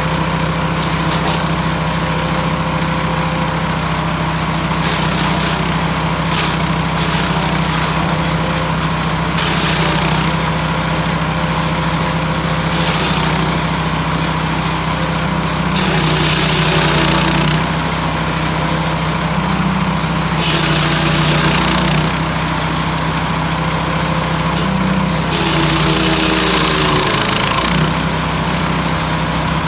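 Lumag HC10 portable wood chipper's engine running steadily, with about six loud rushing bursts of one to two seconds each as material goes through the chipper. During the longest burst, near the end, the engine pitch sags under the load.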